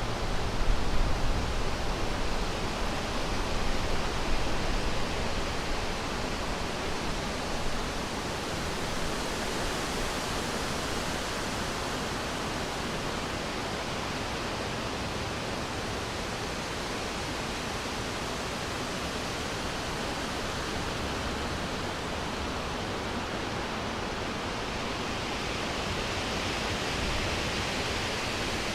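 Wind blowing through forest trees, a steady rushing, with gusts and low rumbles in the first few seconds.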